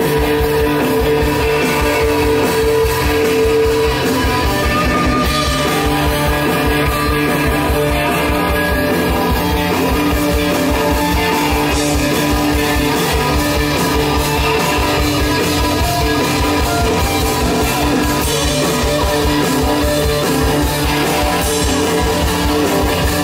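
Live rock band playing fuzz-heavy psychedelic rock through an open-air stage PA: distorted electric guitars over a steady drum beat, with a long held guitar note in the first few seconds.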